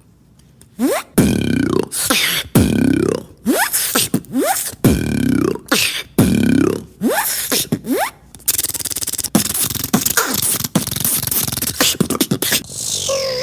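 Beatboxer making sound effects with the mouth: about six falling, pitched zaps about a second apart, then a dense hissing buzz in the last few seconds.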